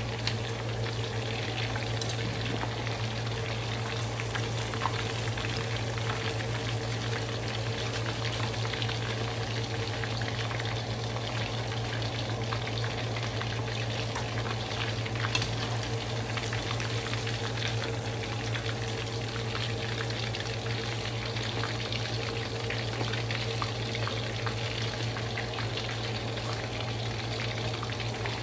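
Coated chicken pieces deep-frying in hot oil in a wok: a steady crackling sizzle, with a couple of faint clicks.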